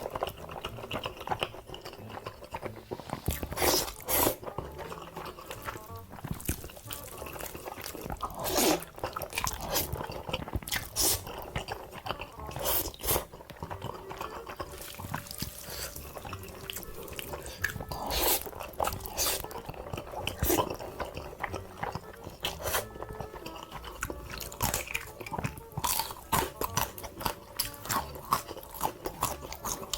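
Close-miked eating: crunchy bites and chewing, loud irregular crunches every second or two, with background music.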